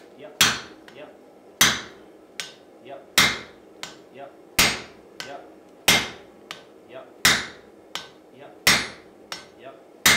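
Sledgehammer blows from a striker landing on a handled top tool held on hot steel on an anvil. There are eight heavy, ringing strikes at an even pace of about one every 1.4 seconds, with lighter metallic clinks between them.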